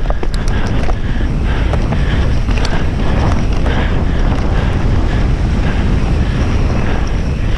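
Wind rushing over the microphone as a mountain bike runs fast downhill on a dirt trail, with the tyres rumbling over the ground and the bike rattling in scattered clicks.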